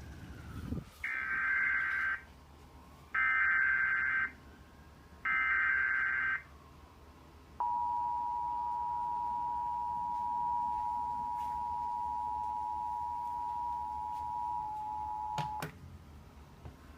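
Emergency Alert System broadcast: three one-second bursts of the SAME digital header, warbling data tones, followed by the EAS attention signal. The attention signal is a steady two-tone alert of 853 and 960 Hz, held about eight seconds, which cuts off with a click.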